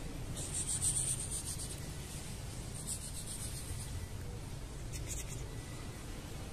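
Soft rustling and brushing sounds, a few short scuffs over a low steady room hum. No cat vocalisation is heard.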